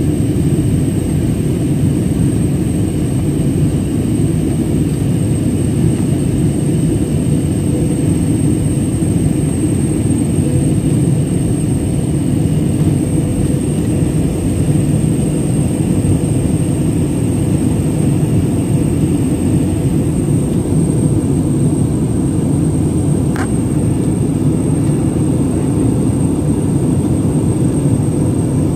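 Cabin noise of an Airbus A320-family jet airliner climbing after takeoff: a steady, loud rumble of the engines and airflow. There is one faint click about 23 seconds in.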